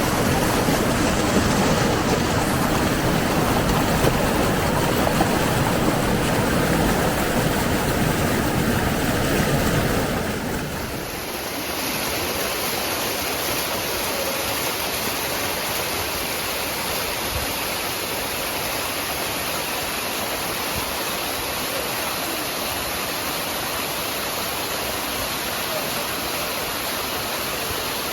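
Steady rush of flowing water from a stream or waterfall. About eleven seconds in it drops slightly and turns thinner and hissier, with less of the low rumble.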